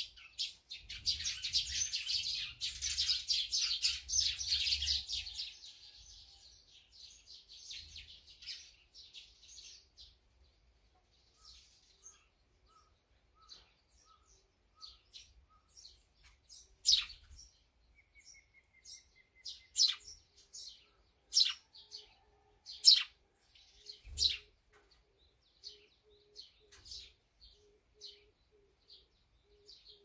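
Small wild birds chirping: a dense burst of chatter for the first few seconds, then scattered calls, with several loud, sharp single calls in the second half. A faint low note repeats steadily over the last several seconds.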